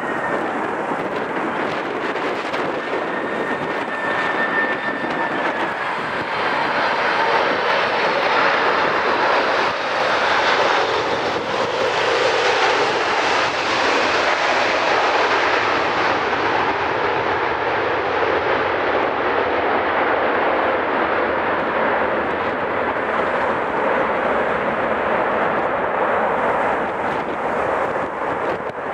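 Four-engined Boeing 747-400 freighter's jet engines on final approach and landing: a steady loud rush with a thin whine near the start that dips slightly in pitch. The rush is loudest as it passes, and its hiss dulls in the second half as it rolls away down the runway.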